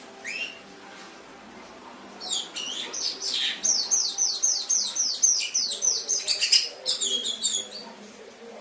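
Domestic canary singing: a single short note just after the start, then from about two seconds in a long, fast phrase of repeated downward-sweeping notes, about five a second, ending near the end.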